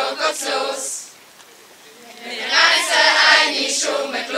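A group of girls singing together without accompaniment: a sung line ends about a second in, there is a pause of about a second, then the group sings the next line.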